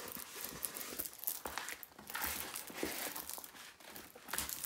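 Diamond painting canvas and its clear plastic protective cover crinkling as it is unrolled and pressed flat by hand, in irregular crackles.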